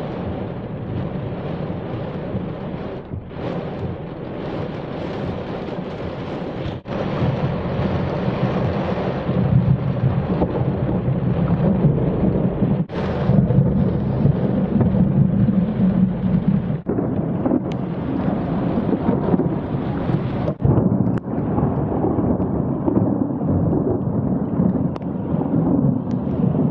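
Heavy thunderstorm: rain pouring down with low thunder rumbling, loudest through the middle, and a few brief dropouts in the sound.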